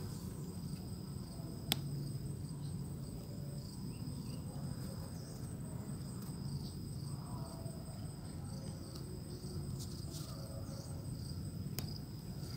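Insects singing a steady, high-pitched drone in two tones over a low background rumble, with a sharp click about two seconds in and another near the end.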